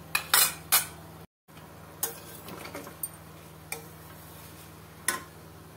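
Steel ladle clinking and scraping against a stainless-steel kadhai as it stirs boiling sugar syrup, a scattering of separate knocks over several seconds. The syrup is still cooking and has not yet turned lightly sticky.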